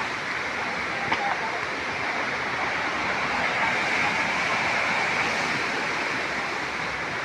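Steady rush of water from a waterfall and stream, with a small knock about a second in.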